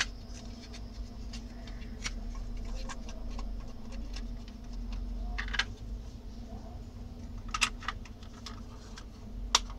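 Plastic clicks and taps from the two housing halves of an Intelbras TDM300 wall telephone being handled and pressed together, with about five sharper clicks a second or two apart, over a faint steady hum.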